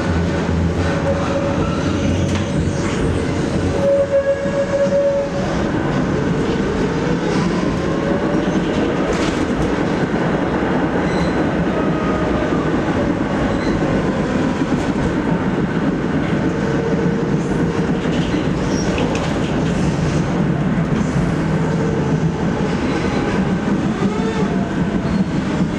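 Ride inside a ČKD Tatra KT8D5R.N2 articulated tram under way: steady rumble of wheels on rails with clicks over rail joints. A whine from the traction drive glides up and down, and a held squeal-like tone sounds twice near the start.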